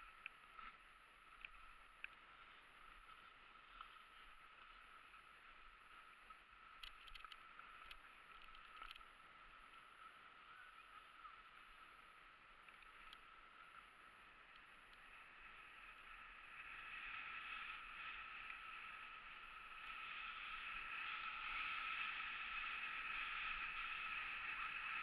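Skis sliding over groomed snow: a steady scraping hiss with a few faint clicks, growing louder about two-thirds of the way through.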